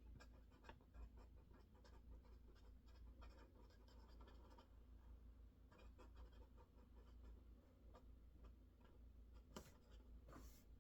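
Faint, rapid typing on a mechanical keyboard, clicking in quick runs with a short pause in the middle. Near the end come two louder, brief rustling scrapes.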